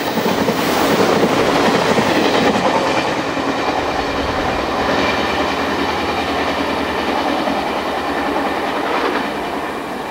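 An electric express train approaching on a curve, its wheels clattering over rail joints and points as it runs toward the station.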